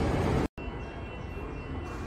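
Low rumble of an approaching electric suburban train, cut off abruptly about half a second in; then a quieter, steady station background noise with a faint high hum.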